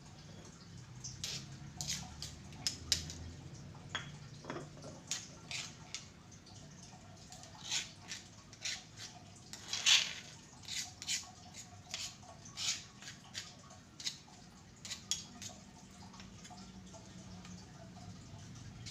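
Irregular light clinks and taps of kitchen utensils against a pot or bowl, roughly one a second.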